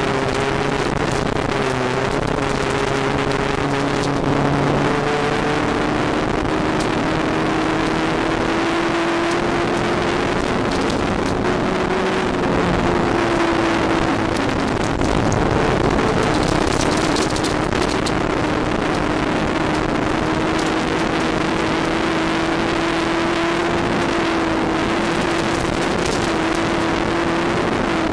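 In-car sound of a VW Golf GTI MkII rally car driven hard on a gravel stage: the engine runs at high revs, its note stepping up and dipping a few times with gear changes and lifts, over a steady rush of gravel and wind noise.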